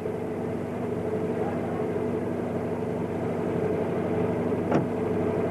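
A car engine idling with a steady, even hum at one unchanging pitch. A brief sharp sound comes about four and a half seconds in.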